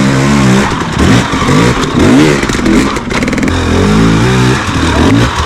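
Dirt bike engine revving up and down again and again under throttle, with a rattle of sharp knocks about halfway through.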